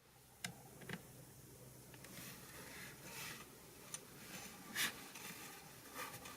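Faint, scattered clicks and soft rustling of small plastic model-kit parts being handled and fitted together, with the sharpest click near five seconds in.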